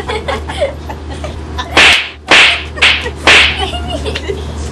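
Four loud slaps of hands on bare skin, about half a second apart, in playful slapping, with faint voices in the first second.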